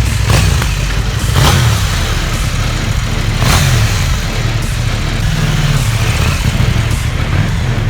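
KTM 790 Duke's parallel-twin engine running with the bike under way, its pitch rising and falling several times as it is revved. Brief rushes of noise come about a second and a half in and again about three and a half seconds in.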